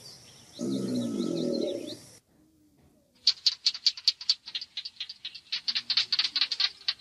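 A crocodilian's short low growl, then, after a second's pause, a gecko chirping: a rapid, uneven run of sharp high clicks from about three seconds in.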